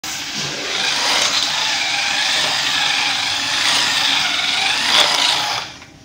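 Toy RC Formula car driving over a hard floor: a steady whirring of its small electric motor and tyres that wavers up and down in pitch and cuts off abruptly near the end as the car stops.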